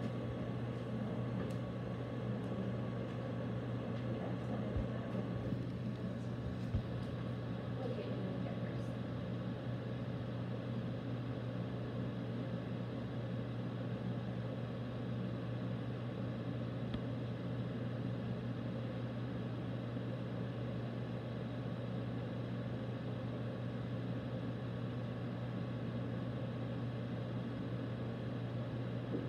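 Steady low mechanical hum of room noise, with a couple of faint knocks about five and seven seconds in.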